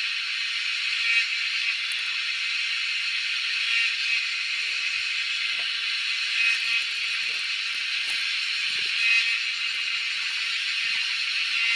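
Cicadas singing: a continuous high buzzing chorus that swells slightly every few seconds.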